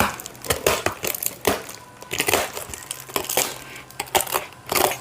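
A delivery package being opened by hand: irregular crinkling, rustling and crushing of the wrapping, with small sharp crackles throughout.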